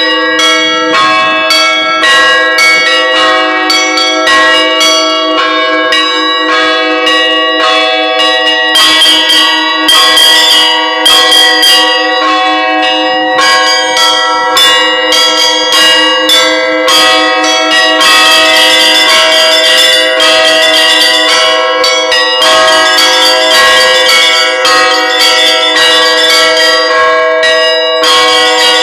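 Bells ringing, struck in quick succession, each stroke ringing on and overlapping the next.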